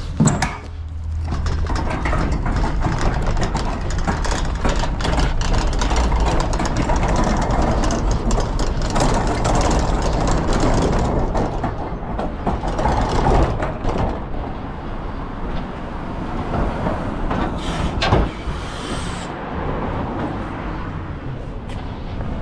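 Refuse truck engine running steadily with road and mechanical noise, a sharp knock just after the start and another about 18 seconds in, with a brief hiss around then.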